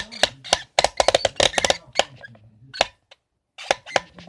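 A plastic toy slime blender machine clicking and clattering in quick runs of sharp clicks as it is turned. This is the noise it makes when slime is stuck up inside it.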